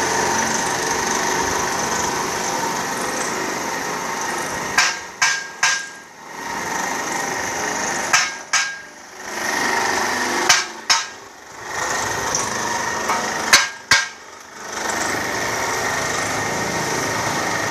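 Sharp hammer blows on metal, in groups of two or three about half a second apart, repeated every few seconds. A motor runs steadily underneath.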